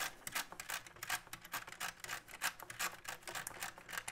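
Rapid, irregular clicking of a combination lock's thumbwheels being spun with a thumb, several clicks a second. The lock is in change mode and its code wheels are being scrambled to set a new combination.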